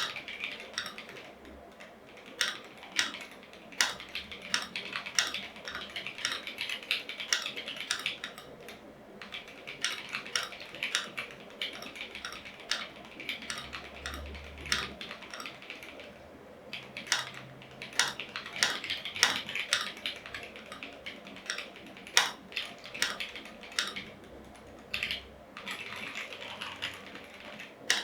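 Typing sound test on an Akko 5075s, a plastic gasket-mounted 75% mechanical keyboard with factory-lubed Akko Piano switches and PBT keycaps. It is a quick patter of keystrokes in runs, broken by short pauses, with an occasional louder single strike.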